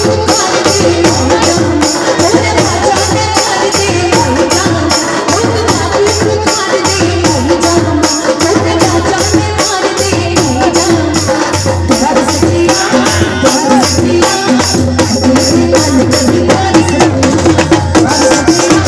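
Live Hindu devotional bhajan music, amplified: a woman sings into a microphone over a fast, steady beat of drums and hand percussion.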